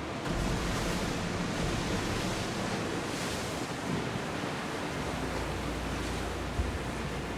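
Sea waves: a steady rush of water, with wind buffeting the microphone in low gusts that come and go. A single short knock sounds near the end.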